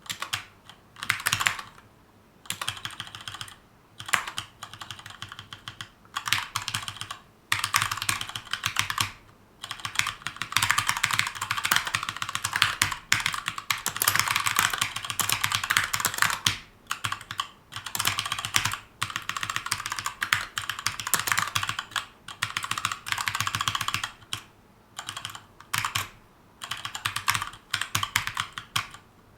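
Typing on a Keychron K2 mechanical keyboard with brown tactile switches: rapid runs of key clacks in bursts of a few seconds, broken by short pauses.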